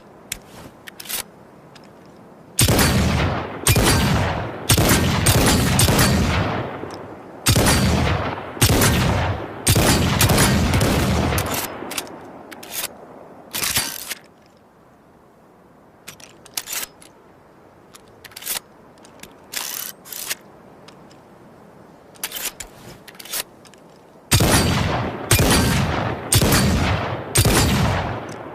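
Revolver gunshot sound effect: loud shots, each with a ringing tail, fired in quick runs for about ten seconds, then a stretch of short sharp clicks, then another run of shots near the end.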